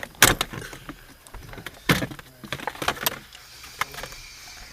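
Hard plastic center-console trim of a Honda Civic Si being tugged and pried loose: a few sharp clacks and knocks, the loudest just after the start and about two seconds in, with lighter rattles between.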